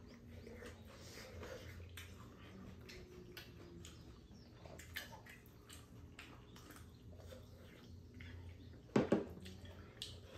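Quiet eating sounds: wet mouth noises, sipping and chewing, with scattered light clicks of chopsticks on the pan and dishes. A louder short mouth sound comes about nine seconds in.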